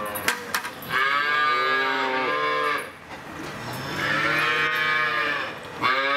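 Calves mooing: two long moos, each rising then falling in pitch, with a third starting near the end.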